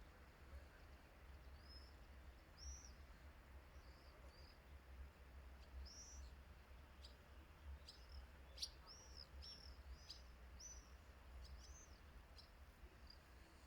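Faint bird chirps: short, high, arched notes repeated many times, coming thicker from about six seconds in, over a low steady rumble.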